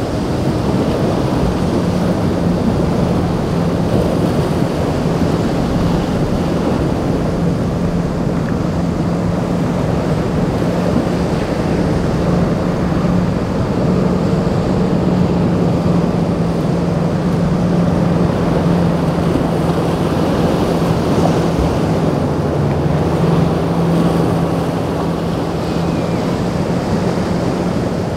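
A Monterey cruiser's engines drone steadily under way through choppy inlet water, with the pitch sagging slightly about two-thirds through. Breaking waves, the hull's wash and wind on the microphone run underneath.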